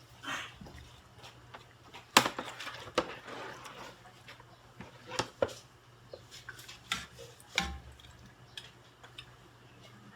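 Scattered sharp clinks and knocks of cookware and utensils being handled at a pot, irregular, the loudest about two seconds in, over a faint steady hum.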